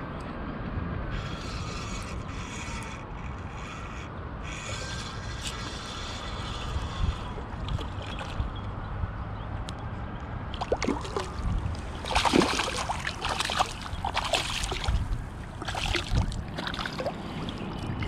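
Spinning reel being cranked over low, steady water and wind rumble. From about ten seconds in comes a run of sharp, irregular splashes as a hooked shad thrashes at the surface beside the wading angler and is grabbed by hand.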